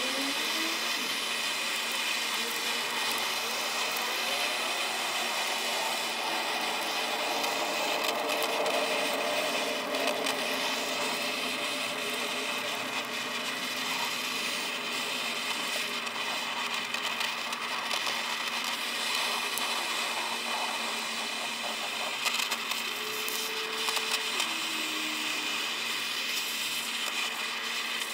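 Blow torch flame hissing steadily as it scorches a pile of popcorn kernels on aluminium foil, with one sharper crack about three-quarters of the way through.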